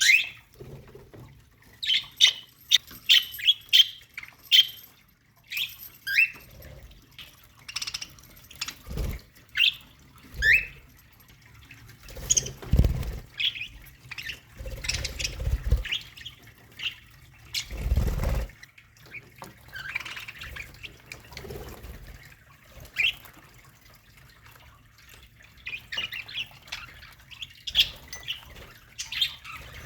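Budgerigars in a colony aviary chirping and squawking in short, scattered calls, some of them quick rising notes. A few dull low thumps come in between.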